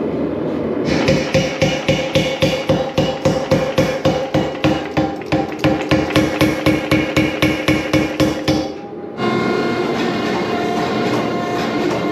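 Mechanical power hammer striking a hot Damascus billet in a fast, even rhythm of about four blows a second, drawing the steel out. The blows stop suddenly near the end, and a steady machine drone with several held tones carries on.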